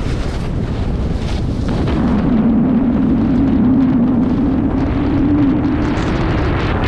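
Wind rushing over a pole-mounted action camera's microphone as a snowboard slides down a groomed slope, its edges scraping on firm snow. A low steady hum rises out of the rushing noise for a few seconds in the middle.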